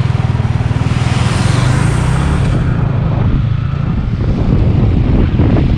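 Motorcycle engine running under way, its note climbing over the first couple of seconds and then easing, with wind rushing over the microphone.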